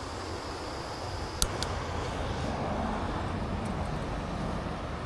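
Small butane camp stove burning with a steady rush, with one sharp knock about a second and a half in as the stove is handled.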